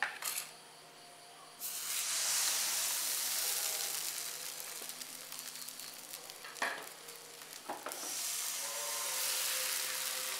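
Vellappam batter sizzling in a hot non-stick pan, the hiss starting suddenly about a second and a half in as the batter goes in. It eases off a little, then grows louder again about eight seconds in as the batter bubbles, with two short knocks in the middle.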